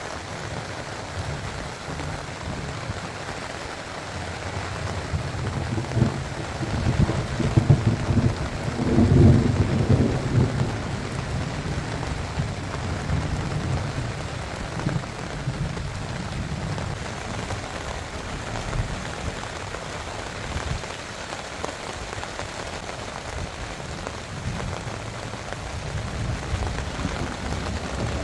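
Steady heavy rain falling on a rooftop tent during a thunderstorm, with a long low rumble of thunder that builds about six seconds in, is loudest around nine seconds and dies away a couple of seconds later.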